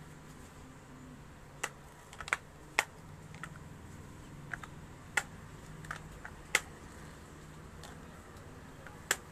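Hair flat iron clacking as its plates snap shut and open on sections of hair: about ten sharp, irregular clicks over a faint low hum.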